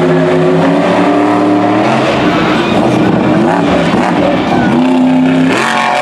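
Monster truck engine revving hard, its pitch rising and falling as the throttle is worked. About five and a half seconds in there is a sudden loud burst as the truck goes full throttle over a dirt jump.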